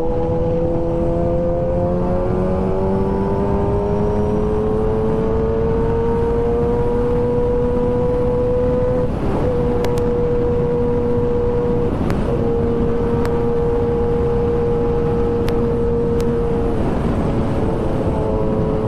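Kawasaki ZX-10R's inline-four engine running hard at high revs at top speed, its pitch rising slowly over the first several seconds and then holding steady. The note breaks off briefly three times, about nine, twelve and seventeen seconds in, over a constant rush of wind noise.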